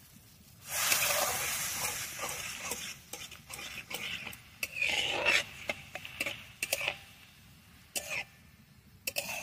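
A metal spatula stirring and scraping vegetable soup in a hot metal wok. There is a loud burst of sizzling about a second in, followed by scattered clinks and scrapes of metal against the pan.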